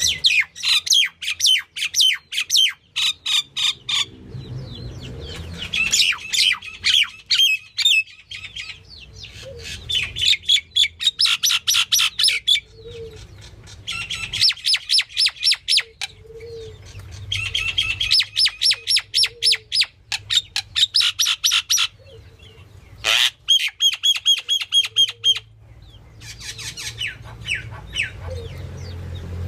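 Myna bird calling in runs of rapid, sharp high notes, each run lasting a second or two, with short pauses between runs. A low background hum comes and goes.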